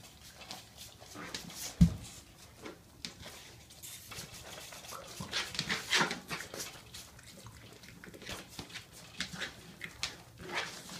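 A mini pig tugging and tearing at a hanging paper piñata with its snout and mouth: paper rustling, crackling and ripping in irregular bursts, mixed with the pig's own noises. There is a sharp knock about two seconds in, and the busiest tearing comes a little past the middle.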